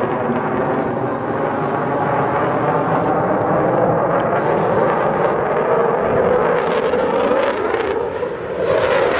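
Dutch F-16 fighter's single turbofan jet engine heard in flight during an aerobatic display: a continuous loud jet noise with a slowly shifting tone. It dips briefly near the end, then grows louder and brighter as the jet comes overhead.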